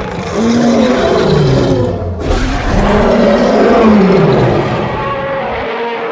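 Two loud roars from a designed giant-ape creature sound effect, layered from ape and big-cat roars. The second roar is longer, bends down in pitch, and fades out near the end.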